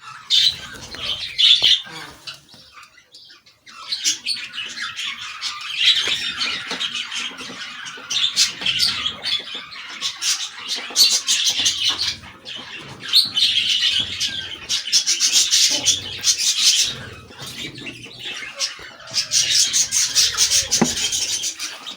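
Lovebirds chattering with rapid, high-pitched squawks and chirps in long noisy runs, broken by a few short pauses.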